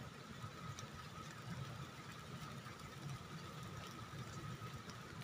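Faint steady outdoor ambience of light rain on foliage: an even hiss with scattered faint ticks, a low rumble underneath and a thin steady high tone.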